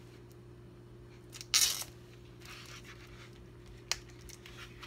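Tight plastic sausage packaging crinkling and tearing as it is cut and pulled open with a knife and fingers. The loudest rustle comes about a second and a half in, and there is a sharp click near the end, over a faint steady hum.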